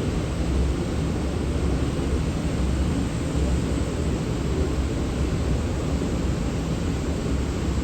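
Steady low rumble with a hiss over it, even in level throughout, with no distinct events.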